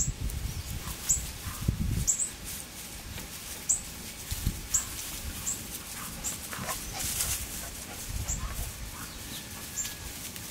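Five-week-old Boxer puppies moving about on dry straw, with low rustling in the first two seconds and again near the end. Short high chirps come roughly once a second throughout.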